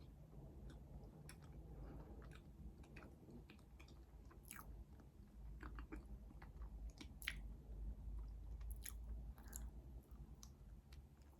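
Close-miked chewing of food, soft and faint, with irregular small wet clicks and crackles from the mouth.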